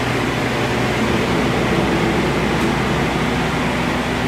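Steady whir of a food-truck kitchen ventilation fan running, with a low steady hum under it.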